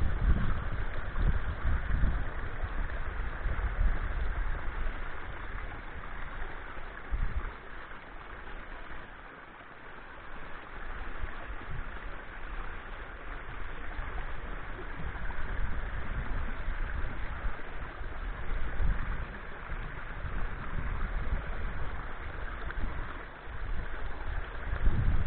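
Wind buffeting the microphone in irregular low gusts, strongest at the start and again near the end, over a steady rushing hiss.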